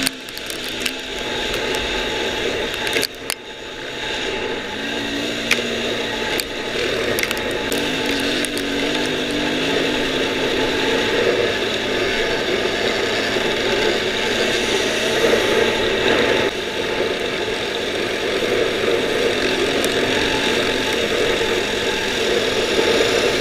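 Dirt bike engine running at speed on a sandy track, its revs rising and falling with the throttle, with a few sharp clicks.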